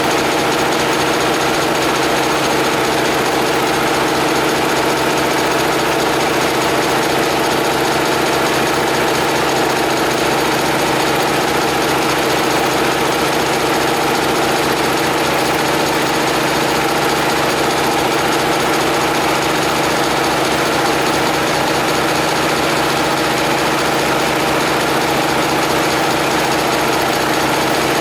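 Homemade air compressor running steadily, an even mechanical hum with a rattle that holds the same pitch and level throughout.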